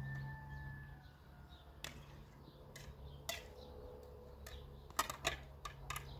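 Light clicks and taps of plates and dishes being handled on a floor mat, coming in a quick cluster about five seconds in, over a faint steady low hum.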